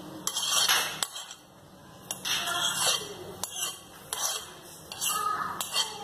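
Metal spoon scraping soaked chana dal out of a plastic bowl into a pot of water, in four or five short scraping strokes with light clinks against the bowl and pot as the lentils drop in.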